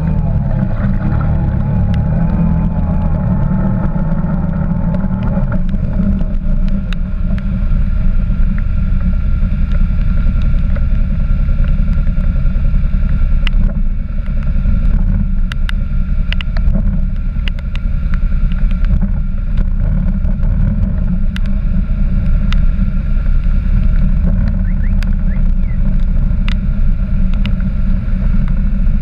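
Quad bike engine running under load as it wades through a flooded stream, with water churning and splashing against the machine. Many sharp clicks are scattered through it, with a wavering higher tone in the first few seconds.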